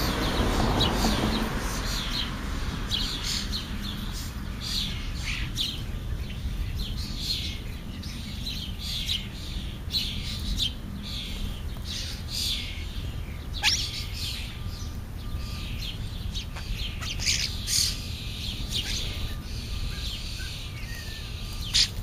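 Young European starlings calling with many short chirps in quick succession. One falling whistle comes about two-thirds of the way through, over a steady low rumble underneath.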